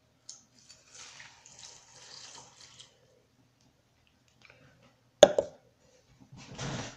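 Milk pouring from a plastic cup onto cereal for about two and a half seconds. Then a sharp knock about five seconds in, the loudest sound, and a short rustle near the end.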